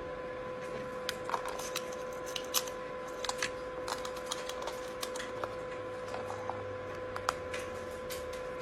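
Irregular light clicks and taps of a foraging wheel toy being handled and turned, a few to several a second, over a steady faint hum.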